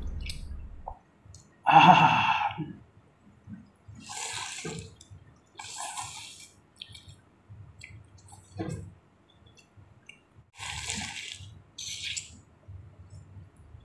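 Several short, wet slurps of hot chicken thukpa broth and noodles from a bowl, with pauses and faint clicks between them.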